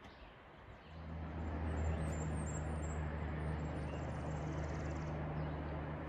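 A motor running with a steady low hum that comes in about a second in and holds at an even pitch.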